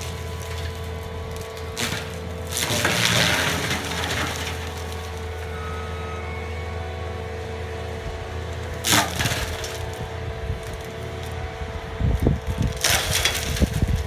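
Skid-steer forestry mulcher (Diamond mulcher head on a Cat compact track loader) running steadily, its engine and spinning drum humming, with bursts of shredding and splintering wood as the teeth bite into pine saplings and brush: a long burst about three seconds in, a short sharp one near nine seconds, and choppy crackling with thumps near the end.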